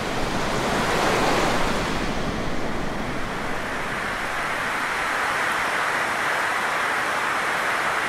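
Ocean surf ambience: a steady rush of breaking waves, swelling slightly in the first couple of seconds and then holding even.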